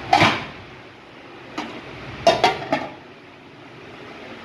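Kitchen clatter of an aluminium cooking pot: a sharp knock as whole spices are tipped from a plate into its water, then, from about a second and a half in, four quick metal clinks as the aluminium lid is set on the pot.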